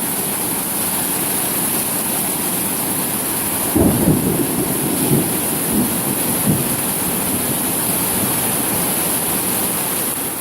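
Intense rain pouring down steadily. About four seconds in comes a low rumbling burst lasting two to three seconds.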